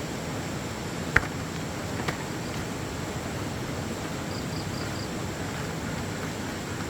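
Steady outdoor background noise, with a sharp click about a second in, a softer click about two seconds in, and four faint, short, high chirps near five seconds in.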